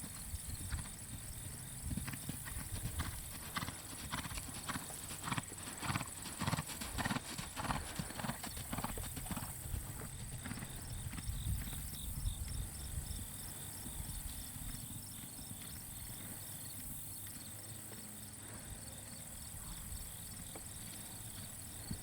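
Hooves of an American Quarter Horse gelding striking the ground in a steady rhythm as he moves under saddle; the hoofbeats are loudest in the first half, then grow fainter.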